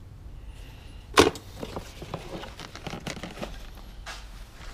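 Small metal hardware and tools being handled and dropped into a plastic tote: one sharp clack about a second in, then light scattered clinks and rattles.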